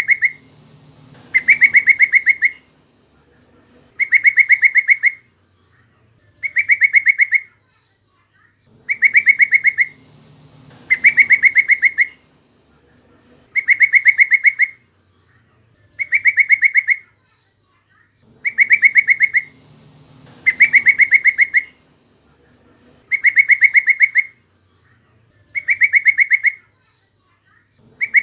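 Yellow-vented bulbul (trucukan) calling: a loud, fast chattering phrase of about a second, repeated a dozen times at even intervals of roughly two seconds, as in a looped lure recording.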